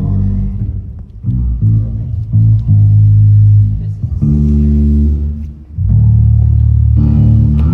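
Band instruments playing without vocals: bass guitar and guitar sounding held low notes and chords that change every second or so.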